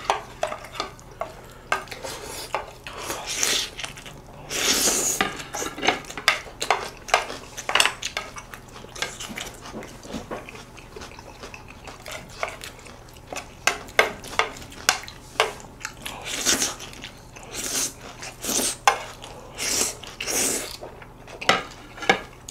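Spoons and chopsticks clinking and scraping on plates while noodles are served and eaten: many short, irregular clicks, with a few longer swishing sounds mixed in.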